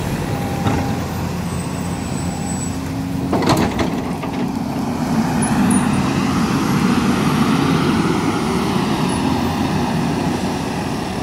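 Volvo EC210B LC crawler excavator's diesel engine running steadily, a little louder in the second half, with a brief clatter about three and a half seconds in.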